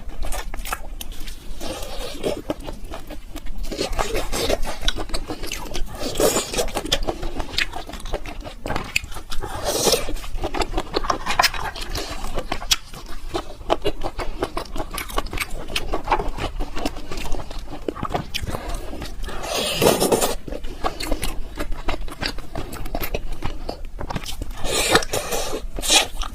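Close-miked eating of seafood: wet chewing with many small, sharp clicks, and a few louder, longer noisy stretches about six, ten, twenty and twenty-five seconds in.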